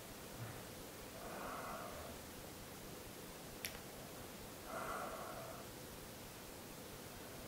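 A person's slow breathing, two soft breaths a few seconds apart, with a single sharp click between them.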